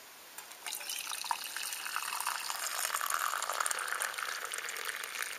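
Berry compote poured in a stream from a camping pot into a stainless steel mug, the liquid splashing and filling the mug. The pour starts about a second in.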